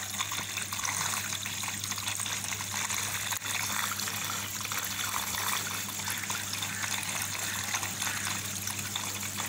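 Small submersible water pump running in a tub of murky wastewater, its outlet jetting a stream that splashes and gushes steadily, over a steady low hum from the pump.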